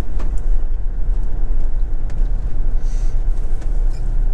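Motorhome engine and road noise heard from inside the cab: a steady low rumble as it rolls slowly forward, with a few faint clicks.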